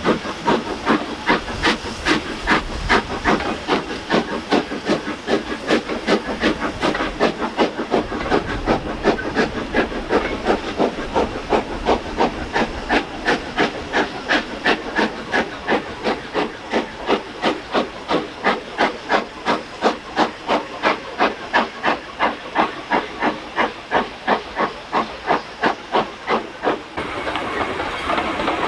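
Steam locomotive working hard, its exhaust chuffing in an even beat of about two to three chuffs a second. About a second before the end the chuffs give way to a steady rolling noise.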